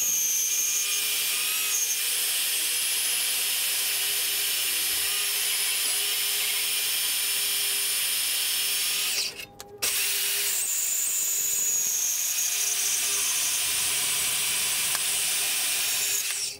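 Bauer 10-amp portable bandsaw running and cutting through steel angle iron: a steady high-pitched whine with a grinding hiss, broken off for about half a second partway through before it carries on.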